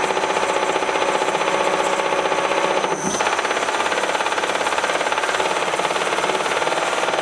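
Metal lathe turning scrap cast iron, the cutting tool taking a cut with a rapid, even rattle. The rattle eases briefly about three seconds in, then carries on.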